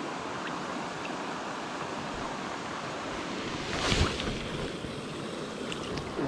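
Steady rush of shallow stream water swirling around the angler's legs, with one loud splash about four seconds in as the brown trout is dipped into the water.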